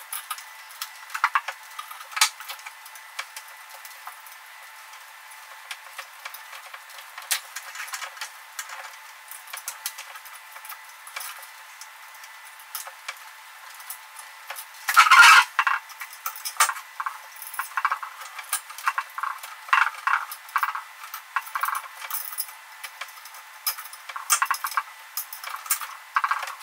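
Small clicks, scrapes and rattles of a screwdriver and wires being worked back through the motor housing of a Bunn G2 coffee grinder, with one louder scraping rattle about halfway through.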